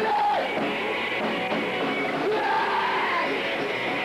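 Punk band playing live, with shouting over the music.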